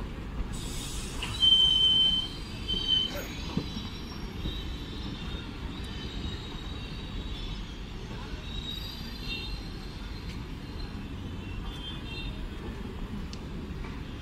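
ICF passenger coaches passing close, wheels rumbling steadily on the rails. High-pitched wheel squeals come in, loudest for about half a second a bit over a second in, and fainter and shorter later on.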